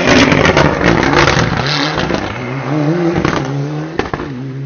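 Rally car engine revving hard, its pitch rising and falling as it is driven through the stage, loudest at the start and easing off, with a couple of sharp cracks near the end.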